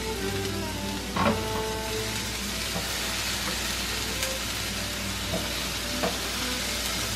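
Pineapple slices sizzling steadily on a hot griddle as they are laid down, with a few light taps as pieces are set on the surface.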